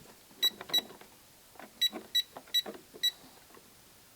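Keys pressed on a Royal electronic cash register, six times in about three seconds, each press giving a soft click and a short high beep. The presses come in two pairs, then a quick run of four.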